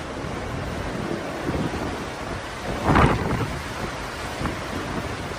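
Thunderstorm: steady rain and wind noise, with a short, loud thunderclap about three seconds in.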